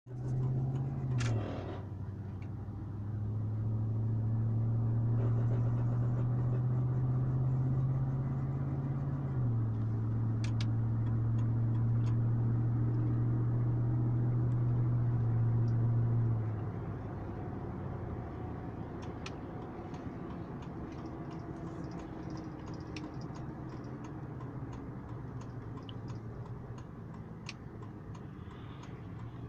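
A 2004 Chevrolet Silverado making an unidentified weird noise: a steady low hum that drops slightly in pitch about a second in and again near the middle, then stops about 16 seconds in, leaving a fainter rumble with scattered light clicks.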